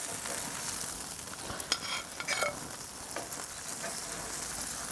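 Steady sizzling of food frying on a hot grill. About one and a half and two and a half seconds in come a few sharp clinks that ring briefly.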